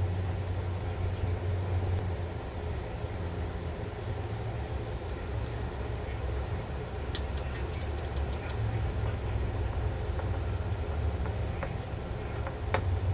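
A steady low rumble, with a quick run of about eight sharp clicks about seven seconds in and one more click near the end.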